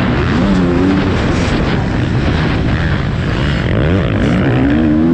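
Motocross bike engine heard from on the bike itself, revving hard, its pitch repeatedly rising and falling as the rider accelerates and shifts through the gears.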